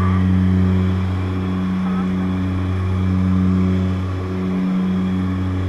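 Twin turboprop engines and propellers of a de Havilland Twin Otter jump plane heard from inside the cabin: a loud, steady low drone that swells and fades slowly every few seconds.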